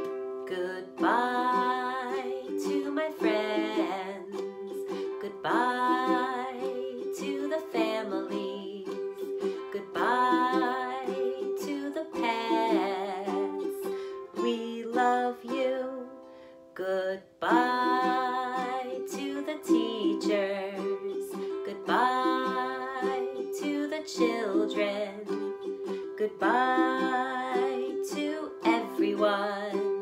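Ukulele strummed in a steady rhythm, with a woman's voice singing along in short wordless phrases every few seconds.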